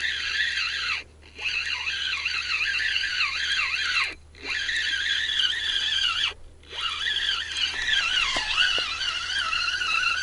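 A continuous chorus of many overlapping warbling, wavering calls. The whole sound cuts out briefly three times.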